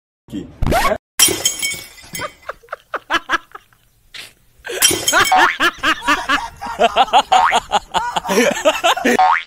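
Glass shattering, a sharp crash with ringing shards about a second in, as a man walks into a glass sliding door. It is followed from about halfway by a busy run of short, voice-like sounds that rise and fall in pitch.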